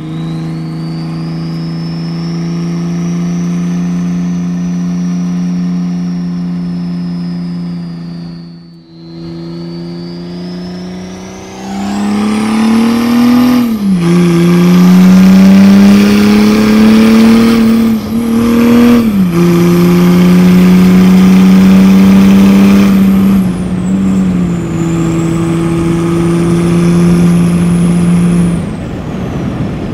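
Mercedes OM606 inline-six diesel with a hood-exit exhaust, heard from inside the car. It runs steadily at first, then grows much louder and climbs in pitch about a third of the way in, dropping back twice as it shifts up. It holds a loud steady drone before easing off near the end, with a thin high whistle rising and falling along with the engine.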